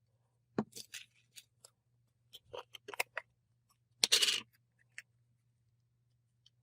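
Hands handling a tub of slime and its plastic packaging: a run of short clicks and crackles, then a louder crinkling rustle just after four seconds in.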